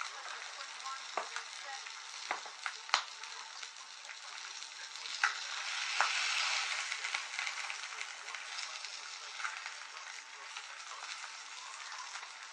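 Salmon fillets sizzling steadily in a frying pan on an induction hob, with a few sharp clicks and taps in the first few seconds. The sizzle swells about six seconds in as a fillet is turned with a fork.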